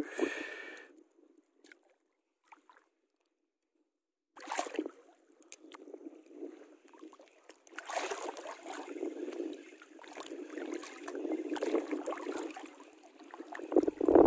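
Water sloshing and lapping against a small boat's hull, with scattered light clicks and knocks. It starts about four seconds in after a short hush and grows louder about halfway through.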